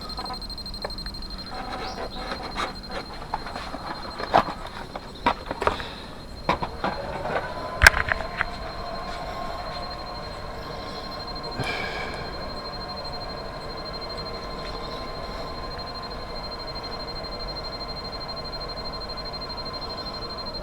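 Clicks and knocks from handling a radio-controlled L-39 model jet. About seven seconds in, its motor winds up to a steady whine and keeps running at low power.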